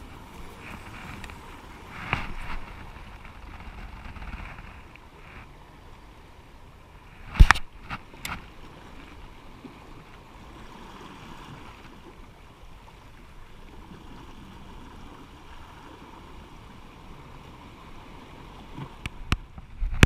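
Sea water sloshing and lapping, with a few sharp knocks, the loudest about seven and a half seconds in.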